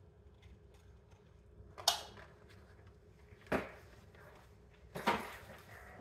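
Three short handling knocks and rustles, about two, three and a half and five seconds in, from gloved hands and a can of PVC cement against plastic pipe, over quiet room tone.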